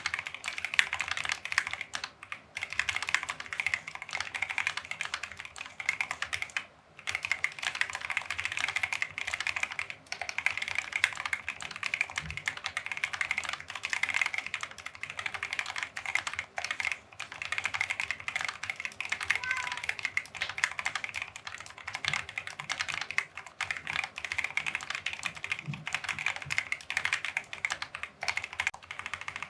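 Fast continuous typing on a Keychron Q3 mechanical keyboard fitted with review keycaps: a dense stream of key clacks with a brief pause about seven seconds in.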